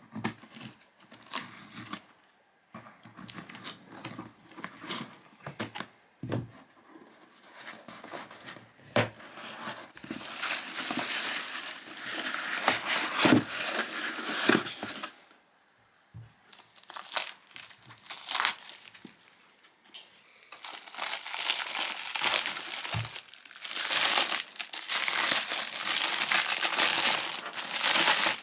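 A cardboard box being unpacked by hand: scattered clicks and scrapes as scissors cut the packing tape and the flaps are opened, then a long stretch of kraft honeycomb packing paper rustling and crumpling as it is pulled out. Near the end a clear plastic bag crinkles as a wallpaper roll is unwrapped from it.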